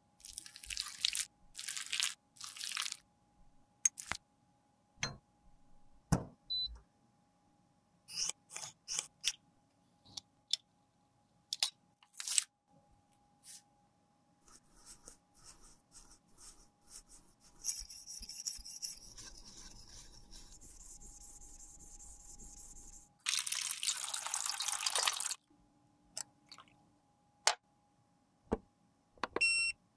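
Close-up handling sounds of makeup repair: short scrapes and brush strokes of tools on lipstick and a silicone lipstick mould, with small clicks. In the last third comes a loud hiss of about two seconds, and near the end a short electronic beep.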